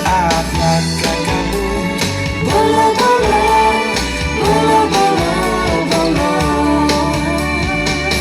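A song playing: a singing voice over guitar and a steady bass line.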